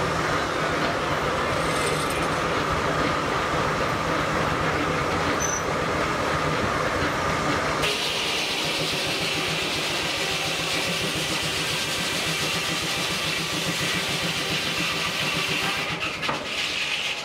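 Steady running noise of steam-powered sawmill machinery, changing abruptly about eight seconds in.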